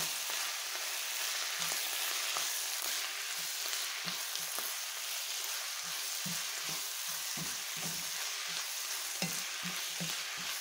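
Sliced sausage, mushrooms and onions sizzling in a hot granite-coated pan while a wooden spatula stirs them: a steady frying hiss with frequent short scraping strokes of the spatula against the pan.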